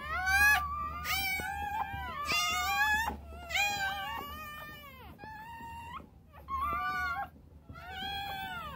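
Newborn Siberian husky puppy crying while being handled: about seven high-pitched, cat-like squealing cries, rising and falling in pitch, some overlapping.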